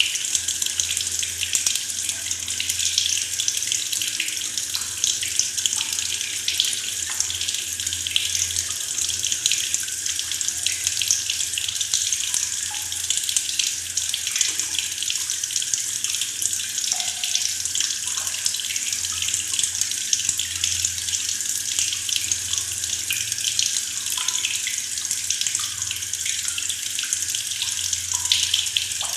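Tap water running steadily from a faucet into a plastic bucket, a continuous splashing hiss with small gurgles.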